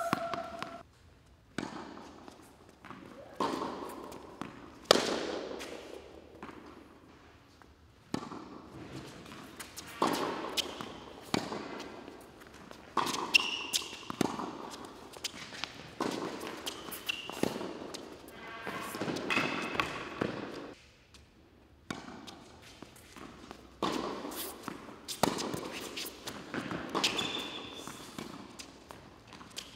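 Tennis ball struck by racquets and bouncing on an indoor hard court during rallies. Each hit is a sharp pop that echoes around the hall, and the points are separated by short pauses.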